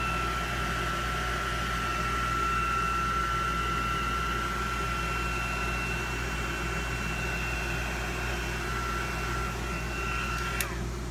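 Small handheld electric dryer running steadily with a high motor whine and rushing air, blown over wet chalk paste to dry it; it is switched off with a click near the end.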